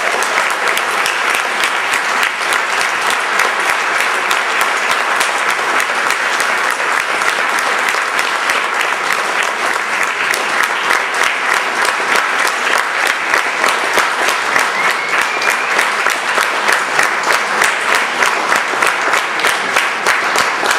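Large indoor audience applauding steadily, a dense continuous clatter of many hands clapping.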